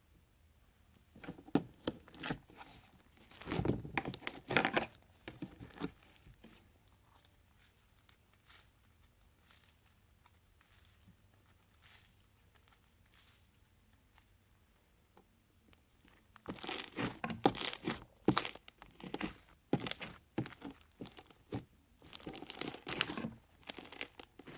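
Crunchy slime activated with Tide and Elmer's Magic Liquid being worked by hand, crackling and popping in runs: a burst over the first few seconds, a quiet stretch, then a longer, denser run of crackles from about two-thirds through to the end.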